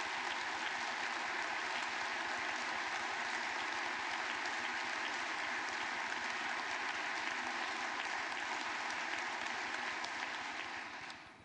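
Large audience applauding steadily, dense clapping that fades out near the end.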